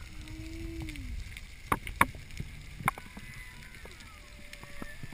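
Underwater sound through a camera's waterproof housing during a freediving descent: a low rumble of moving water, a few sharp clicks, and faint thin tones that slide in pitch, one falling near the start.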